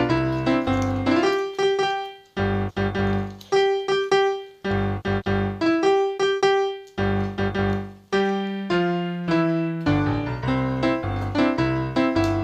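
Background piano music: separate struck notes that fade, in light phrases broken by brief pauses.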